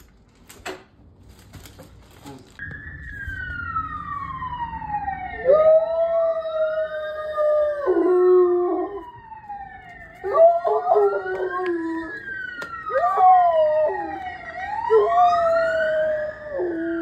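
Police car siren wailing, sweeping slowly up and down, with a German Shepherd howling along to it in four long howls that each drop lower at the end. Two sharp knocks come in the first two seconds, before the siren starts.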